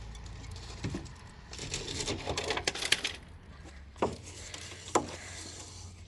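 Scraping and scratching at rusty metal inside a vehicle door, loosening flakes of rust, followed by two sharp taps about a second apart.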